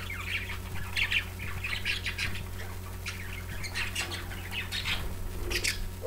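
Pet budgerigars chirping and chattering, short high calls coming every fraction of a second, with a brief flutter of wings near the end as one budgie lands on a hand.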